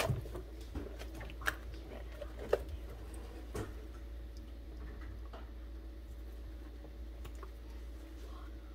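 Hands handling chicken of the woods mushroom pieces in a bowl of water, giving a few soft clicks and knocks in the first few seconds, over a steady low hum.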